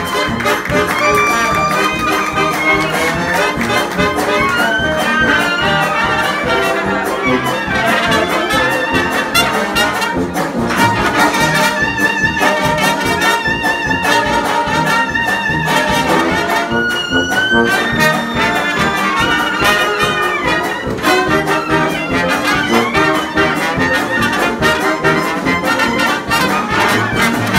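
A 1920s-style jazz dance orchestra playing at full ensemble: trumpets and trombone lead over clarinet and saxophones, with tuba and drums underneath. About halfway through, the horns hold long notes together.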